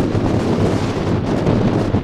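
Strong gusting wind buffeting the microphone, a loud rushing roar that rises and falls.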